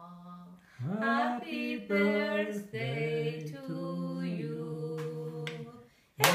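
A woman singing a slow tune unaccompanied, holding long notes that step from pitch to pitch. Right at the end, rhythmic hand-clapping starts along with the singing.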